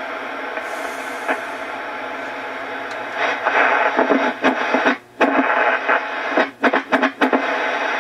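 Static hash from the speaker of a Swan 350 tube ham transceiver on receive. About three seconds in it grows louder and choppy, then cuts out sharply several times for a split second. It is an intermittent fault that the owner suspects is a relay.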